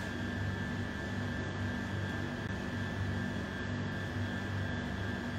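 Steady mechanical hum with a thin high whine over it and low tones that swell and fade slightly; no knocks or clicks stand out.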